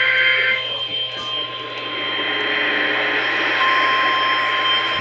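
Loud radio static hiss from a weather-radio broadcast. A burst of two-tone EAS data signal cuts off about half a second in, and a steady single alert tone near 1 kHz comes in over the static at about three and a half seconds.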